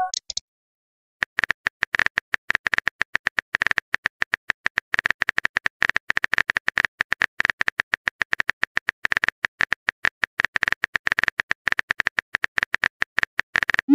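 Rapid, irregular clicking like keys being typed on a keyboard: a typing sound effect. It starts about a second in and goes on at several clicks a second.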